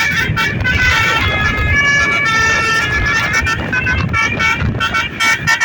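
Bus 'telolet' multi-tone horn playing a fast tune of short notes that jump in pitch, ending in a few quick staccato blasts, with a low rumble underneath.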